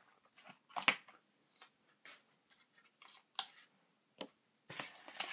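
Faint scattered clicks and crinkles of a plastic blister pack being cut open with scissors and handled, the sharpest click about a second in and a small cluster near the end.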